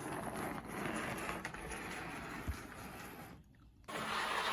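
Vintage Tyco model train locomotive running on its track, its small electric motor and gears making a steady whirring rattle; the locomotive is dusty and not yet lubricated but runs well. The sound cuts out suddenly near the end.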